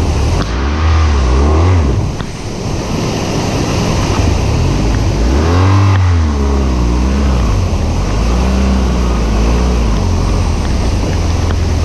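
Motorcycle engine revving up and easing off twice, its pitch rising and falling, under a steady rushing noise.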